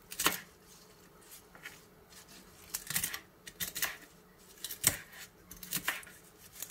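Kitchen knife chopping celeriac leaves and stalks on a wooden cutting board: uneven, spaced-out knocks of the blade hitting the board, the sharpest about two-thirds of the way through.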